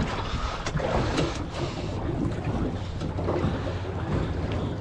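Wind buffeting the microphone over water lapping against a small aluminium boat, with a few light knocks about a second in.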